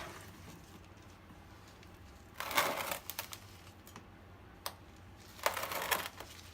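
Non-clumping clay cat litter granules poured onto a potted plant's soil as a top layer. There are two brief pours about three seconds apart, with a single click between them.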